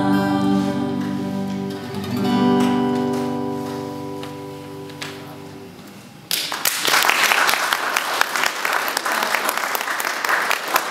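A song ends on steel-string acoustic guitar. The two voices hold the last note at the start, and a final strummed chord about two seconds in rings out and fades. About six seconds in, audience applause breaks out suddenly and continues.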